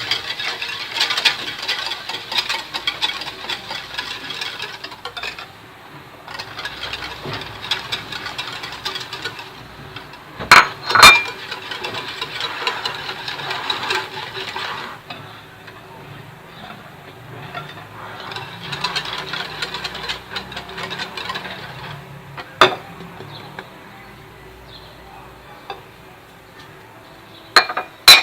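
Fine semolina being stirred into a runny batter in a mixing bowl: a utensil swishes and scrapes through the mixture in stretches, with a few sharp clinks against the bowl, two about a third of the way in and a couple near the end.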